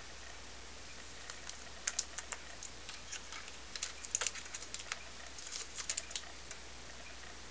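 Computer keyboard keys clicking in irregular clusters as a pet cockatiel works at them, for about five seconds from just over a second in.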